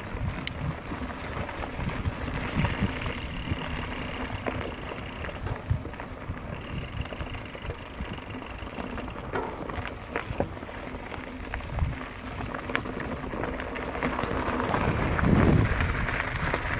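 Mountain bike being ridden on a dirt trail: tyres rolling and crunching over the ground, with frequent small knocks and rattles from the bike over bumps and wind on the microphone. The noise swells louder near the end.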